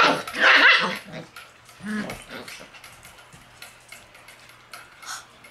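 Shiba Inu puppy yapping: a loud high-pitched burst right at the start, followed by a longer one, and a shorter, lower bark about two seconds in. After that there are only faint clicks.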